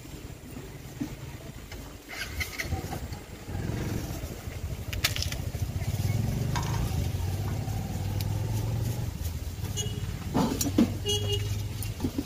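Street traffic noise: a motor vehicle's low, steady engine rumble, with scattered short taps and clinks and a few brief high rings near the end.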